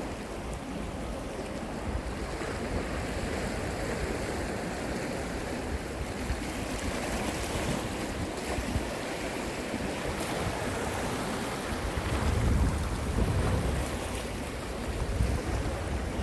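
Sea surf washing against a rocky shore, with wind buffeting the microphone, heaviest about twelve to fourteen seconds in.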